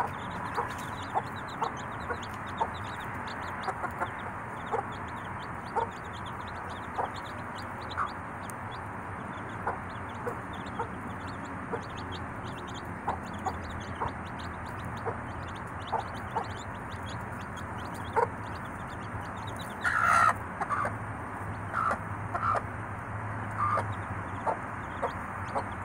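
Cowan/Gull gamefowl chicks peeping constantly while the mother hen clucks about once a second. A louder, longer call stands out about twenty seconds in.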